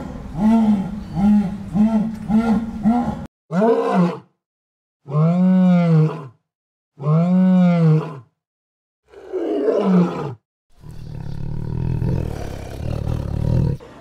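Big-cat calls cut together one after another. First comes a jaguar's hoarse grunting call, about five grunts in quick rhythm. Next are four separate drawn-out roars, a lion's among them. A low rumbling growl fills the last few seconds.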